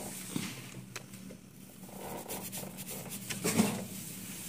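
Faint clicks and scraping as a screwdriver tip works at the metal end socket of a TV backlight tube, with one sharper click about a second in, over a low steady hum.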